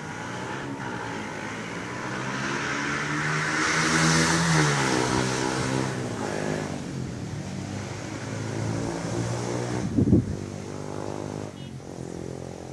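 Engines of motor vehicles passing by: one swells to its loudest about four seconds in, its pitch dropping as it moves away, then another engine rises again. A short low thump about ten seconds in is the loudest moment.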